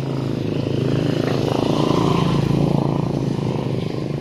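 A motor vehicle's engine running, its hum growing louder toward the middle and easing off near the end.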